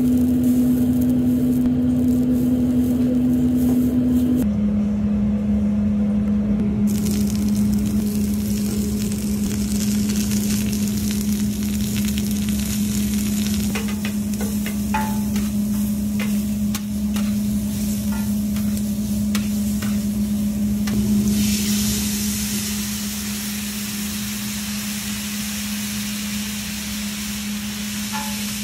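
Onions and peppers sizzling on a hot flat-top griddle over a steady low hum, with a metal spatula clicking and scraping against the steel plate through the middle. About three quarters of the way in, the sizzle turns sharper and hissier as the vegetables sit in liquid on the griddle.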